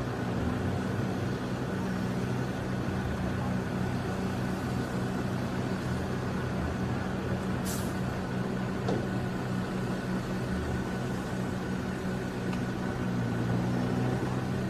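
A large vehicle engine running steadily at a constant speed, from a truck or heavy machine. There is a short high hiss about eight seconds in.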